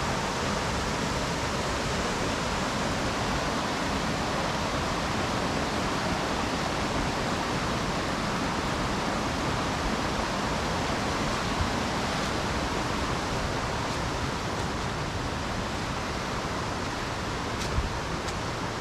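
Mountain stream rushing over rocks in a steady, unbroken wash of water noise, with a couple of short clicks near the end.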